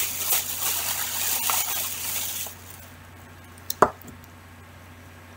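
Plastic bag rustling and crinkling as it is handled, for about two and a half seconds. Then it goes quiet apart from a single sharp knock near four seconds in.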